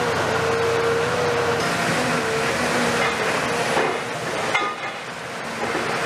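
Cat 340F UHD demolition excavator at work: its diesel engine and hydraulics run with a steady whine over a dense, noisy rumble. There is a single sharp knock about four and a half seconds in, where the sound briefly gets quieter.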